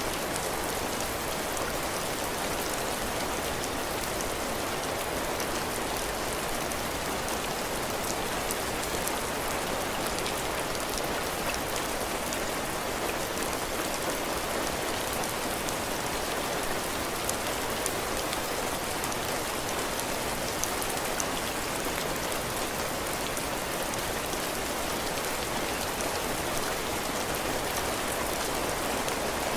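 Heavy rain falling steadily on a porch roof and the ground, a dense even hiss with fine drop patter.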